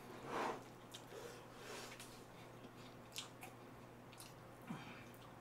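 A brief soft squishing rustle as chopsticks work through sauced instant jjajang noodles in a frying pan, followed by faint chewing and a few small clicks.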